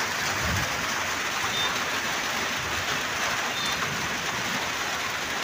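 Steady rain falling on wet ground and puddles, an even unbroken hiss.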